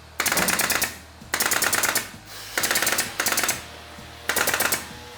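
Pneumatic nail gun fired in five quick bursts of rapid shots, each burst about half a second long, driving nails into plywood subfloor over high-density styrofoam.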